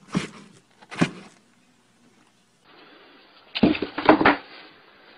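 A cat inside a cardboard box knocking against the cardboard: two sharp thumps about a second apart, then a louder cluster of bumps and scuffles lasting under a second.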